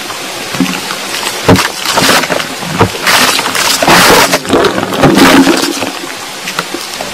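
Underground recording made at about 5 m depth: irregular rustling and crackling with several swelling surges, which the recordist takes for soil sliding down and water in a tunnel being dug.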